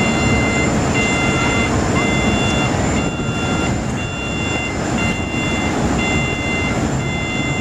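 Ferry's engines and the wind on deck making a steady rumble, with a warning beeper sounding a high, multi-tone beep about once a second throughout.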